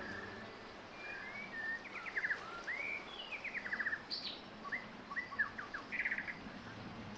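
A songbird singing a varied run of short chirps, quick trills and whistled slurs, lasting about five seconds.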